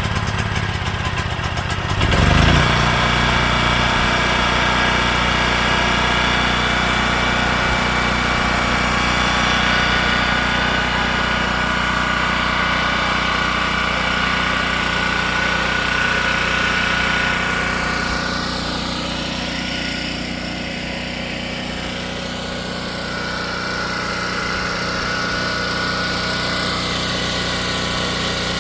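Portable open-frame gasoline generator running steadily just after being pull-started, its engine picking up and getting louder about two seconds in. Past the middle, a higher whine dips and rises again over the engine.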